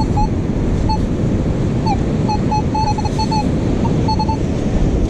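Strong wind on the microphone and breaking surf, with repeated short, high beeps in quick clusters from a metal detector sounding off on a buried target.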